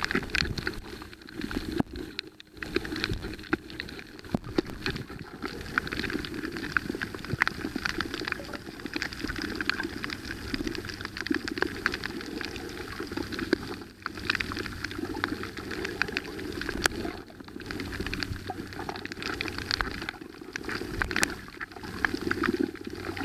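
Underwater noise picked up by a camera held underwater over a coral reef: a steady crackling, bubbling water sound full of small clicks, with a faint low steady hum underneath.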